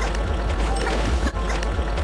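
Loud, dense music mixed with noisy sound effects, broken by one brief, sharp dropout about a second and a third in.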